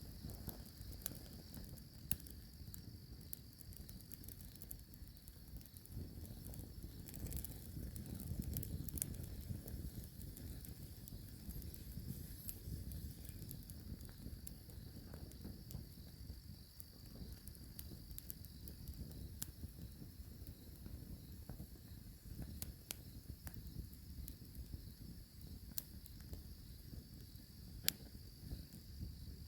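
Night insects keeping up a steady high-pitched drone, under low rustling and handling noise with scattered faint clicks.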